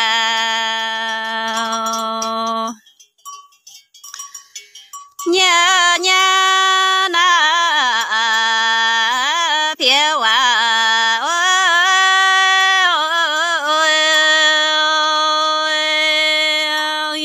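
A woman singing a Red Dao (Iu Mien) folk song solo, in long held notes with wavering, ornamented pitch. A held note breaks off about three seconds in, there is a pause of about two seconds, and the singing takes up again.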